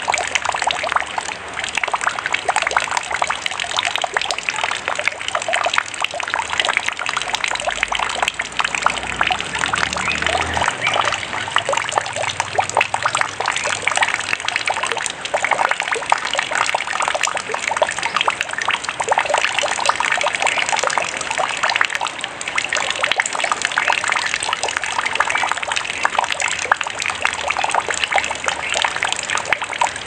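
Mountain spring water running steadily over rocks, a dense, unbroken sound of many small splashes.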